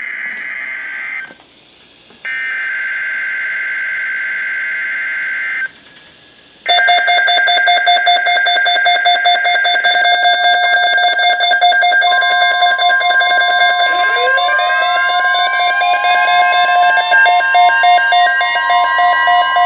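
Emergency Alert System (SAME) header: bursts of two-note data screech separated by short quiet gaps. About seven seconds in, a loud, harsh, pulsing electronic alert tone starts, and later a steady tone and several rising sweeps join it.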